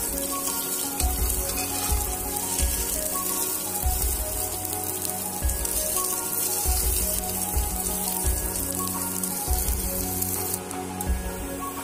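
Basmati rice, vegetables and whole spices sizzling in hot oil in a steel pot as they are gently turned with a steel ladle. This is the rice being fried for vegetable pulao before the water goes in. Background music with a steady beat plays over it.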